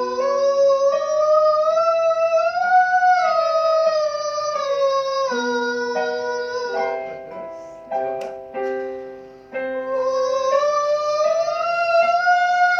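A singer doing a vocal exercise over piano chords, holding a vowel that slides slowly up and then back down in pitch. About two thirds of the way through the voice stops for a few seconds while the piano plays chords alone, then the sung glide starts again.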